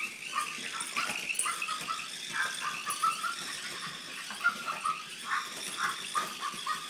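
A crinkly bag rustling and rattling as a small dog with its head stuck inside shakes and tugs at it. Short, high-pitched dog noises come in repeatedly over the rustling.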